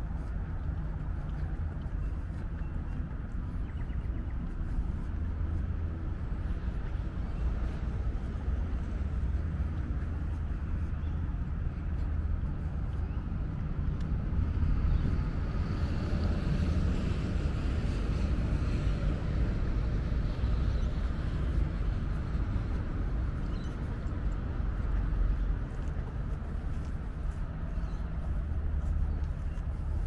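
Steady low rumble of wind buffeting the microphone, mixed with road traffic. It grows louder for several seconds midway, as if a vehicle passes.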